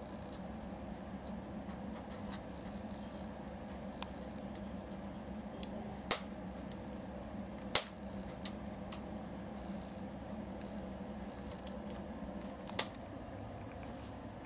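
A cat paws at a rubber band around a small paper-wrapped box, and the band snaps back against the box with sharp clicks. There are three loud snaps a few seconds apart, with fainter ticks and scratches between them.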